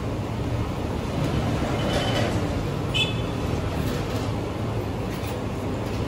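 Steady low background rumble, with a short high-pitched ring about three seconds in.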